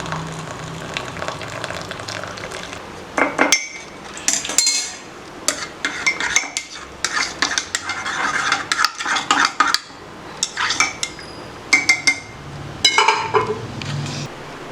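A spoon stirring and clinking against kitchen utensils while tea is being made, with a long run of sharp, irregular clinks starting about three seconds in.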